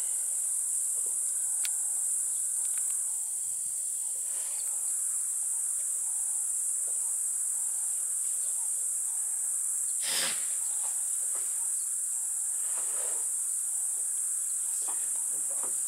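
Steady high-pitched drone of insects in the bush, unbroken throughout. A single brief, sharp sound cuts in about ten seconds in.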